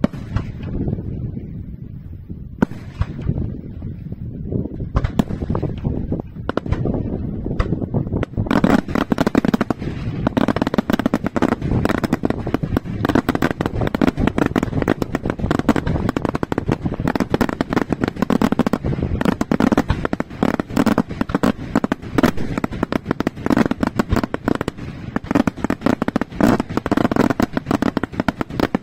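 Daylight aerial fireworks exploding overhead. For the first eight seconds or so there are separate bangs a second or two apart. Then the show turns into a dense, continuous crackling of many small reports packed close together.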